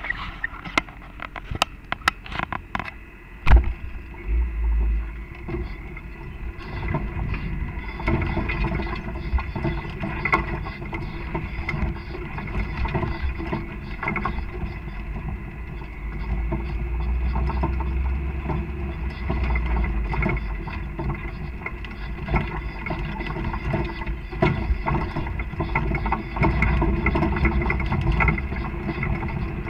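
Off-road vehicle running along a rough trail, its engine rumbling steadily and rising and easing with the throttle. A few sharp knocks come in the first few seconds.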